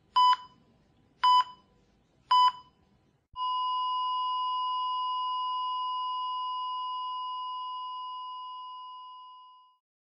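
Electronic beeping: three short beeps about a second apart, then one long beep at the same pitch that slowly fades away.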